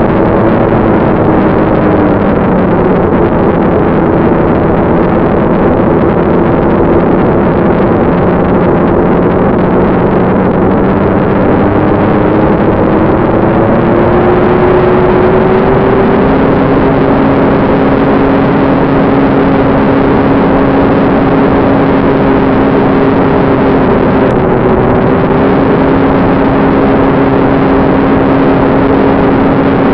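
Ducted fan of a BD-5 fanjet model, heard in flight: a loud, steady rush of air and fan noise with a few held tones that step up slightly in pitch about halfway through.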